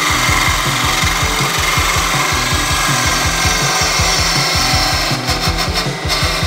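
Wood lathe spinning a small wooden blank while a hand-held turning tool cuts it, a steady scraping hiss of the cut. About five seconds in the cut breaks into a run of short scrapes.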